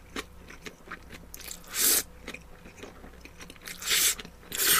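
Noodles in black bean sauce (jjajangmyeon) being slurped up close to the microphone: three loud slurps, about two seconds in, about four seconds in and at the end, with small wet chewing clicks between them.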